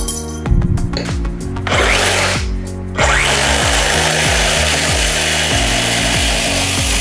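DeWalt DCS382N 20 V cordless reciprocating saw cutting through a 45 mm steel pipe with a 2 mm wall. The cutting comes in about two seconds in, breaks off briefly, then runs steadily. Background music with a low beat plays throughout.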